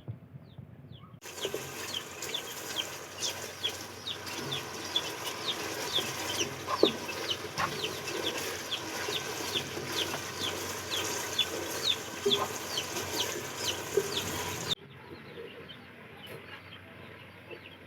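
Chickens and chicks: many short, high, falling cheeps, a few a second, over a steady hiss. The sound cuts in about a second in and cuts off near the end.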